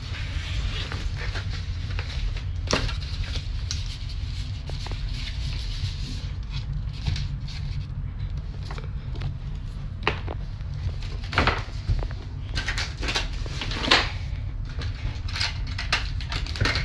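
Rustling and clatter of toiletries and packing pouches being handled and taken out of a suitcase, with several sharp knocks as things are set down on a wooden counter, over a steady low hum.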